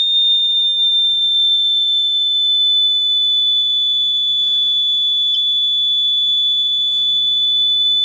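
A continuous high-pitched electronic tone, like an alarm beep held on one unchanging pitch, loud and steady throughout. Faint short rustling noises come about four and a half and seven seconds in.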